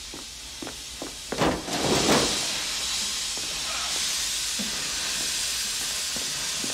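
A few soft knocks, then a louder burst about a second and a half in, and then a steady hiss of vapour pouring out of an opened commercial kitchen compartment.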